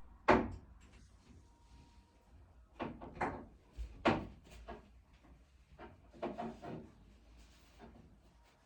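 Several short, quiet knocks and clicks of wooden wardrobe doors and drawers being handled, a few at a time with pauses between them.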